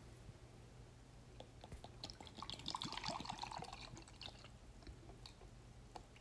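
Vinegar poured from a plastic bottle into a glass tumbler: a faint splashing trickle starting about two seconds in and lasting a couple of seconds.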